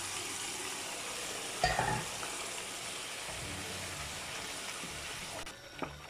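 Oil and tomato masala sizzling in a frying pan as boiled urad daal is poured in and stirred with a wooden spoon, with a short thump about two seconds in. The sizzle thins out near the end once the lentils are mixed in.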